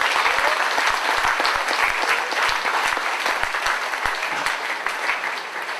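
A large audience applauding: dense, steady clapping that begins to thin out near the end.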